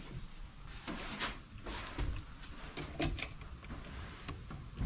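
Scattered clicks and knocks of hands handling a blue plastic electrical box and its wiring.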